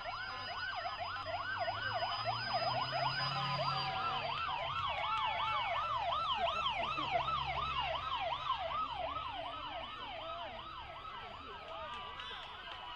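Several vehicle sirens yelping at once, fast rising-and-falling wails overlapping one another, with a low engine rumble under them in the middle. The sirens ease off somewhat over the last few seconds.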